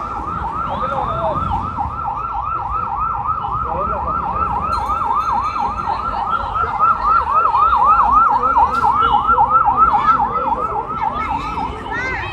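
Emergency vehicle siren in a fast yelp, its wail sweeping up and down about four times a second. It grows louder past the middle and then cuts off near the end, over a low rumble of road traffic.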